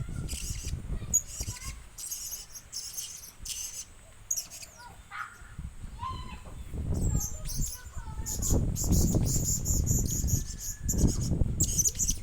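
Blue-crowned hanging parrot (serindit) giving many short, high-pitched chirps in quick runs. A low rumble runs underneath and is loudest from about seven to eleven seconds in.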